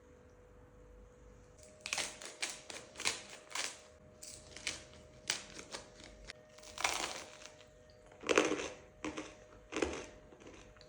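Crusty homemade rye bread crunching in a run of irregular short, crisp crunches, roughly two a second, starting about two seconds in, over a faint steady hum.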